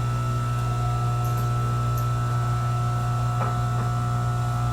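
Milling machine running steadily with a constant hum and a faint tick about three and a half seconds in.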